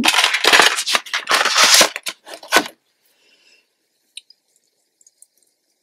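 Clear plastic packaging crinkling and rustling in handling for nearly three seconds as die-cut paper flowers are taken out, then quiet except for a couple of faint ticks.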